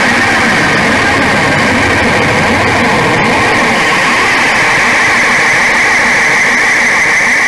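Harsh noise music: a loud, dense, unchanging wall of distorted noise with a steady bright band high in the middle of the range and an engine-like churn underneath.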